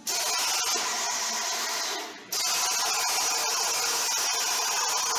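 Wire-feed welder arc welding a steel truck frame rail: a steady crackling hiss that starts abruptly, breaks off for a moment about two seconds in, then resumes for the next bead.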